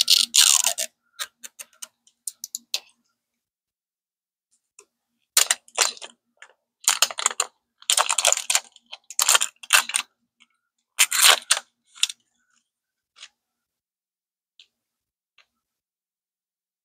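Plastic film wrapper crinkling and tearing in bursts as it is peeled off a toy capsule ball. A few short clicks come between the bursts near the start, and the rustling stops about three quarters of the way through.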